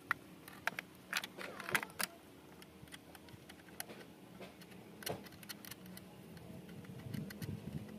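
Plastic wiring-harness connectors clicking and rattling as they are handled and plugged into the back of a car stereo head unit: a cluster of sharp clicks in the first two seconds and another about five seconds in.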